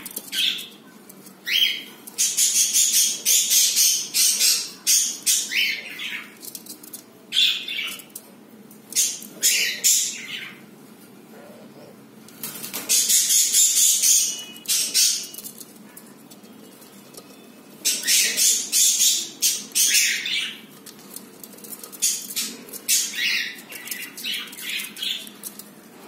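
Budgerigars in a clay nest pot giving bursts of harsh, noisy chatter mixed with short chirps, in about five loud spells with brief pauses between them.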